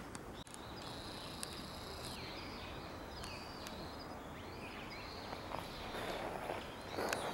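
Outdoor garden ambience: a steady, high-pitched insect drone with several short swooping bird calls over it. A louder rustling comes near the end.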